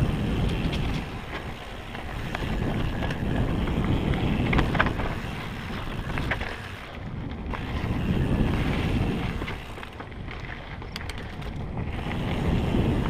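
Mountain bike descending a dirt and rock singletrack: wind rushing over the camera microphone mixed with the knobby tyres rolling on dirt, the rush swelling and easing several times. Scattered sharp clicks and rattles from the bike over stones and roots.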